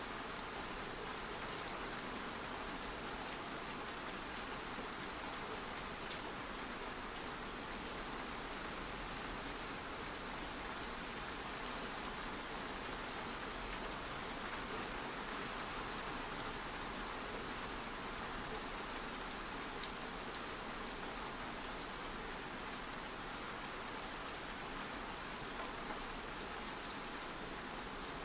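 Steady rain falling and pattering on a surface, an even hiss with no let-up.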